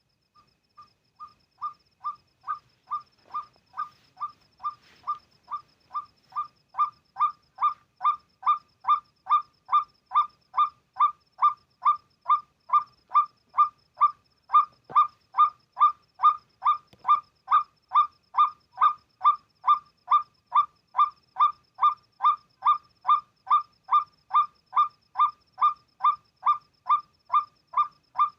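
White-breasted waterhen (ruak-ruak) calling: a monotonous series of identical 'kwak' notes, about two a second. It starts faint, grows louder over the first few seconds, then keeps a steady pace and level.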